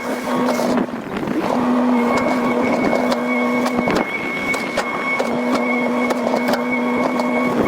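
Excavator running, with a steady whine that drops out briefly about a second in and again around the middle, and scattered knocks.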